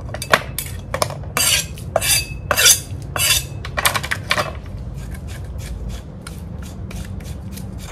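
Metal kitchen utensils clattering and scraping against pots and dishes, with several longer scrapes in the first half, then lighter, quicker taps. A low steady hum runs underneath.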